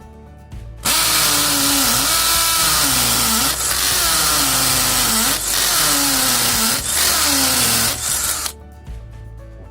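Hamilton cordless drill running under load for about seven seconds. Its motor tone sags and recovers five times as the bit bites into the material, then the drill stops suddenly. Background music plays throughout.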